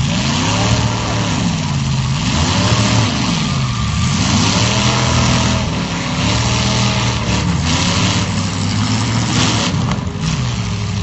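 Demolition derby car engines revving, the pitch rising and falling repeatedly, over a steady drone of other engines running.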